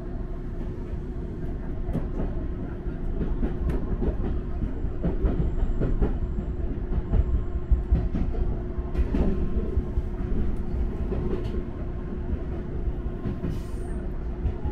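Electric train running on the rails, heard from inside the front car: a steady rumble and hum with clickety-clack of the wheels over rail joints. It grows louder as the train picks up speed over the first several seconds.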